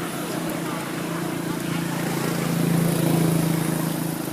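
A vehicle engine's steady hum, growing louder to a peak about three seconds in and then fading, as of a motor vehicle passing by.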